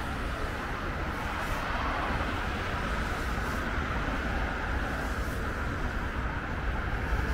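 Steady road traffic: cars driving along a wide multi-lane avenue, a continuous hiss of tyres on wet asphalt over a low rumble of engines.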